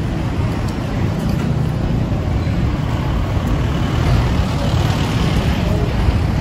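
Steady street traffic noise, a continuous low rumble of vehicles with no single distinct event.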